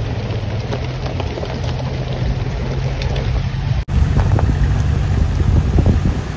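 Engines of a slow-moving off-road 4x4 convoy, led by a Maruti Gypsy, with a steady low rumble and tyres on a gravel track. The sound drops out for an instant a little past halfway, then comes back louder.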